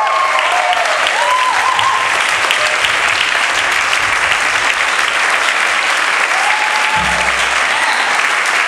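Audience applauding loudly and steadily at a curtain call, with a few cheers rising above the clapping. There is a low thud about seven seconds in.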